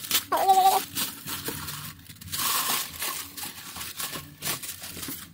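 Tissue paper and plastic packaging rustling and crinkling as a parcel's wrapping is pulled open by hand, with irregular crackles and a short pitched sound about half a second in.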